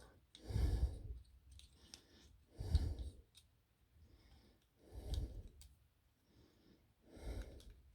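A person breathing out audibly into a close microphone, one breath about every two seconds. Between breaths come a few faint plastic clicks from toy-figure joints being moved.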